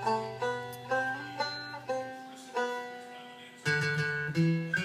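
Background music: a plucked string instrument picking a slow melody, one note after another.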